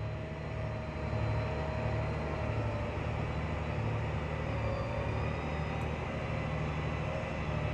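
John Deere 8260R tractor's diesel engine heard from inside the cab, pulling steadily under heavy load at low speed as a 4-metre subsoiler rips through hard, compacted ground. A thin steady whine sits above the low engine drone, which gets a little louder about a second in.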